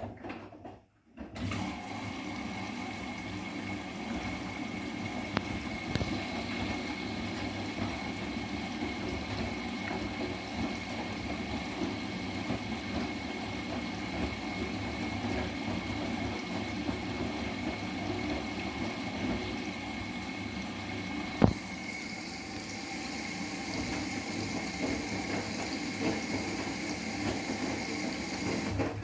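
Bosch WGA252Z0TR washing machine with water running through it: a steady rush of water with a thin high whine, starting about a second in, and a single sharp click about three-quarters of the way through.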